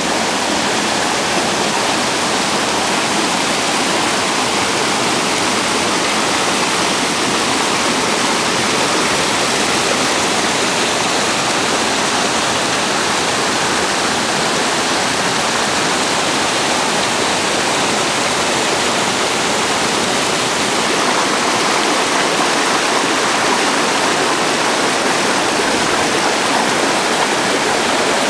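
Rocky mountain stream cascading over boulders: a steady rush of white water.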